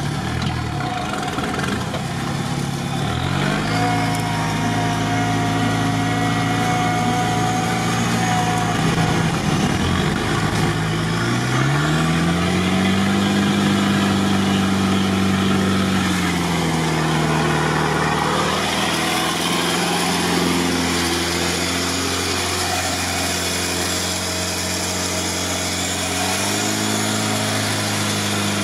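Modified UAZ off-roader's engine running under load in a mud pit, the revs climbing a little before halfway, holding, dropping back, then rising again near the end. The truck is stuck and not making headway.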